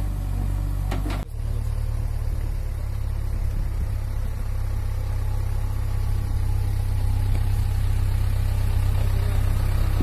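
Diesel engine of a JCB backhoe loader running steadily at idle, a low rumble, with a brief break about a second in.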